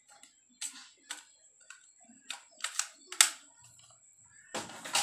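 Irregular sharp clicks of a plastic toy pistol being handled and worked, with one louder click a little past three seconds in.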